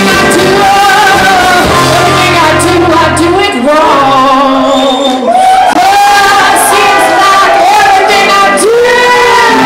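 Live band music with trumpet and electric guitar, and a woman singing into a microphone.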